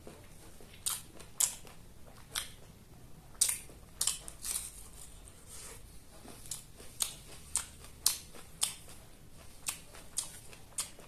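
Close-miked chewing of food, a run of sharp, crackly crunches and mouth clicks coming irregularly, about one every half second.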